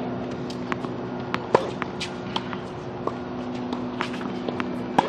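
Tennis ball bounced on a hard court ahead of a serve: sharp pocks, the loudest about a second and a half in and again near the end, with lighter clicks between. A steady low hum runs underneath.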